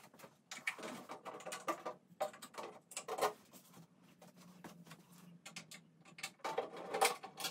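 Scattered scratchy clicks and rustles from unscrewing the screws of a treadmill's plastic motor cover with a screwdriver, mixed with a person shifting position and stepping on carpet. A faint steady low hum runs underneath.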